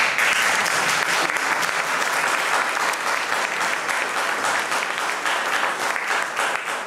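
Theatre audience applauding, breaking out suddenly and beginning to die away near the end.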